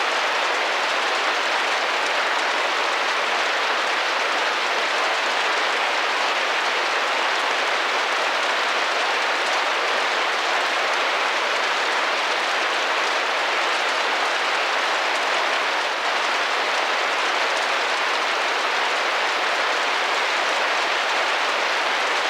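Steady rain pattering against a window pane: an even, continuous hiss of drops with no breaks.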